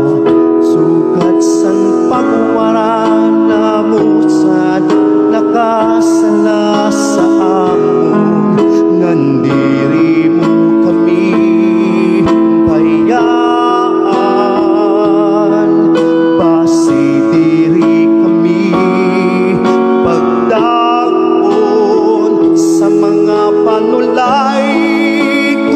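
A devotional song in Waray, sung by a solo singer with vibrato over a sustained low accompaniment note; the words pray for forgiveness of sins.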